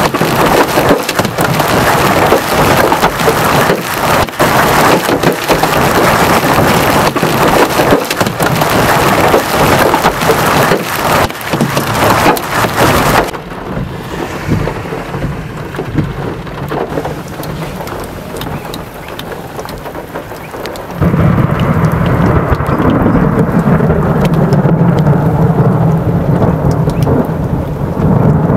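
Heavy rain and hail pelting down, dense hiss with many sharp hailstone hits, until it drops suddenly to steadier, quieter rain about halfway through. About 21 s in, thunder breaks in with a loud low rumble that rolls on to the end.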